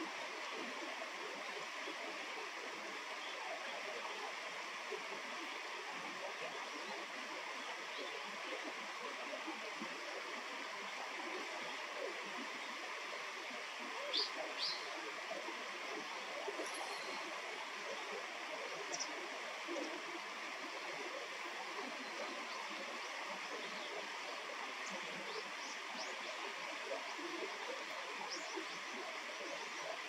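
Steady rush of flowing stream water. A few brief high bird chirps sound over it, two close together about halfway through and a handful more later.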